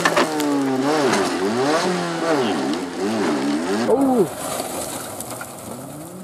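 A rally car's engine on a gravel stage, revving up and down in about five quick swells. About four seconds in the sound changes abruptly and turns quieter: an Opel Astra rally car's engine, rising in pitch near the end.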